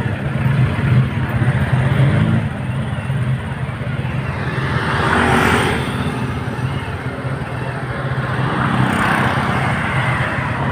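Motorcycle engine running steadily with road traffic going by; a passing vehicle swells up and fades about five seconds in, and another comes near the end.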